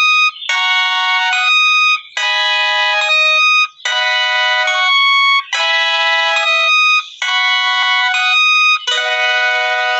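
A short electronic phrase of bright synthesized chords, looped over and over with a brief gap about every second and a half, like an alarm or ringtone melody.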